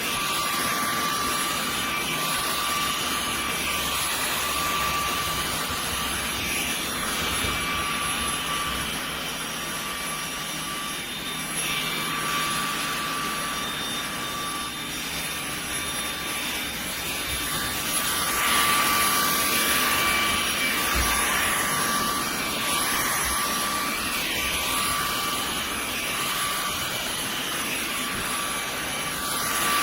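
Fanttik Slim V8 APEX cordless handheld car vacuum running, a steady high-pitched motor whine with a rushing hiss of air that rises and falls as it works.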